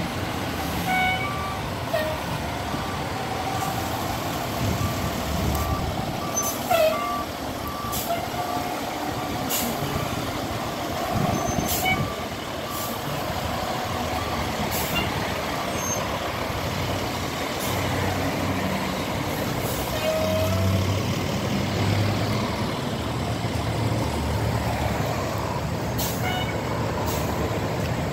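Fire engine's diesel running as the truck moves slowly, with a backup alarm beeping at a steady pace over roughly the first nine seconds and several short, sharp air-brake hisses.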